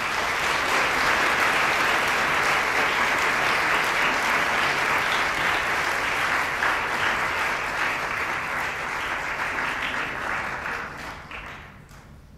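Audience applauding, starting suddenly and dying away about eleven seconds in.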